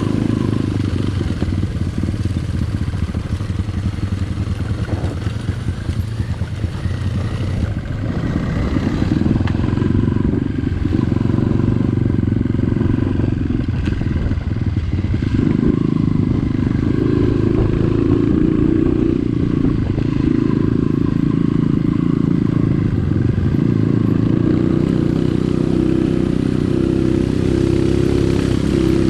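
Dirt bike engine running continuously under way, getting louder about eight seconds in and again around fifteen seconds.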